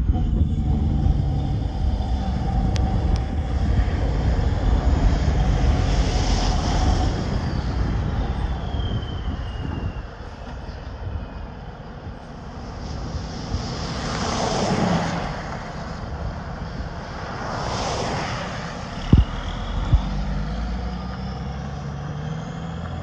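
Diesel engine of a garbage-hauling tractor-trailer running with a deep, steady rumble as the truck comes up and makes a slow, wide turn close by; the rumble is loudest in the first ten seconds, then eases. Two other vehicles swish past about 14 and 18 seconds in, and two short sharp sounds come near the end.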